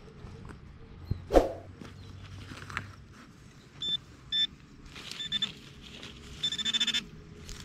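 Handheld metal-detecting pinpointer beeping as it is probed through loose dirt: two short beeps about four seconds in, a few more a second later, then a fast run of beeps near the end as it homes in on the buried target. A single sharp knock comes about a second and a half in.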